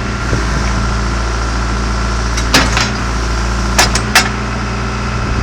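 John Deere 310G backhoe loader's diesel engine idling steadily, with four short sharp clicks or knocks a little past the middle.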